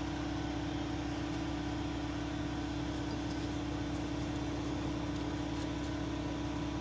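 Steady mechanical hum with one held low tone and an even hiss behind it, unchanging throughout.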